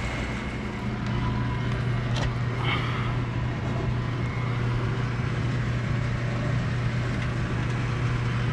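Steady low mechanical hum over a constant outdoor background noise, with a brief click and a short rattle about two to three seconds in.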